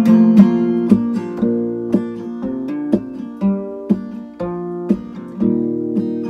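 Acoustic guitar strummed in a steady rhythm of chords that ring on between strokes, with no singing over it.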